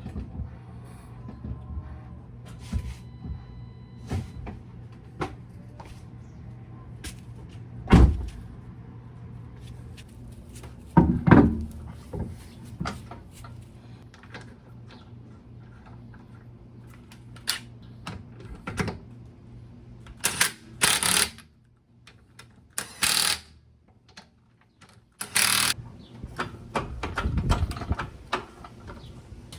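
Hand tools and metal brake parts being handled during a brake job: scattered clinks and knocks, with several short hissing bursts in the second half.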